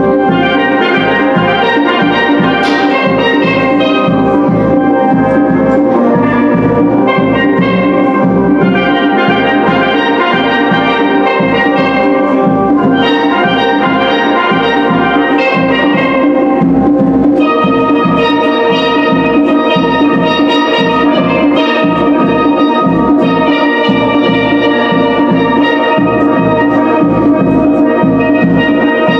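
Steel band playing live: several steel pans struck with mallets carry a lively tune over a steady drum-kit beat.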